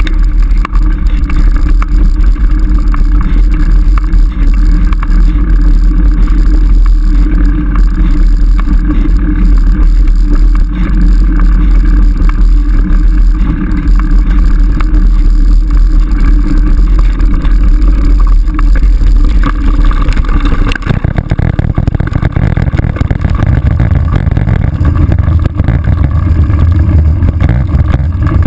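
Steady loud rumble and rattle of riding a dirt trail, picked up by a GoPro HD2 mounted at the saddle. About two-thirds of the way in the noise turns deeper and rougher.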